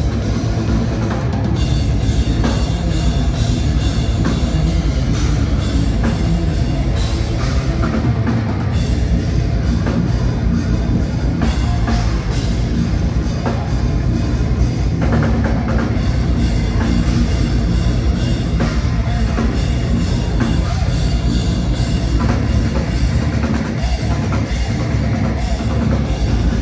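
A deathcore band playing live at full volume: a loud, dense wall of heavy music driven by a pounding drum kit, with no break.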